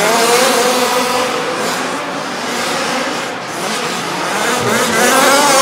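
Several 1/5-scale gas RC cars racing on a dirt track, their small two-stroke engines revving up and down with wavering, overlapping pitches. Very loud.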